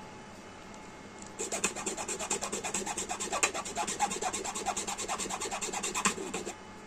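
Rapid rasping, scraping strokes, about ten a second, starting about a second and a half in and stopping abruptly near the end.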